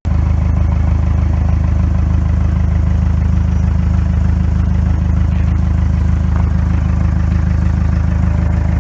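An engine running steadily at idle with an even low throb, loud, coming in suddenly.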